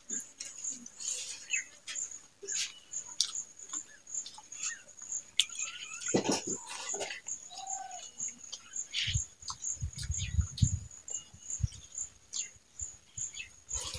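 Close-up eating sounds from hand-eating rice: scattered wet mouth clicks and chewing, with a run of low thumps about nine seconds in. Behind them, a high chirp repeats steadily about three times a second.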